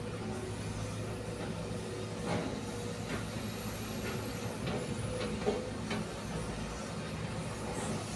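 Heavy diesel machinery running steadily with a constant low hum, with scattered short knocks and scrapes over it, typical of sand being dug and loaded at a sand mine.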